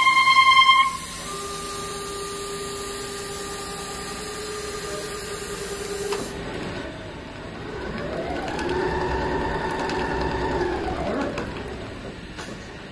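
CNC tufting/bartacking machine running: its motors give a loud steady whine that drops off abruptly about a second in, leaving quieter steady tones. Later a whine rises, holds and falls as the sewing head travels to the next stitch point, and a few sharp clicks come near the end.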